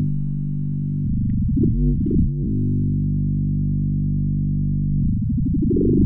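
Vector FM, a Max for Live FM synthesizer, sounding a low drone whose tone shifts and wavers as its operator particles move. The tone settles and holds steady for a couple of seconds in the middle, then starts moving again near the end.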